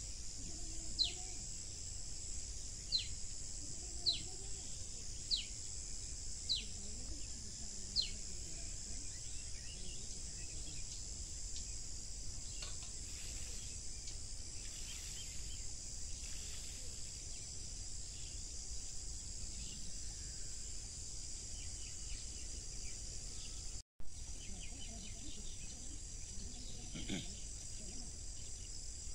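Steady high-pitched insect chorus in the open air, with a bird repeating a short falling whistle about once a second during the first eight seconds. The audio drops out for an instant about two-thirds of the way through.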